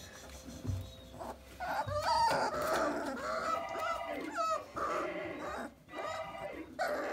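A litter of about 30-day-old Vizsla puppies whining and squealing, several small voices overlapping in short rising and falling calls, starting about a second and a half in.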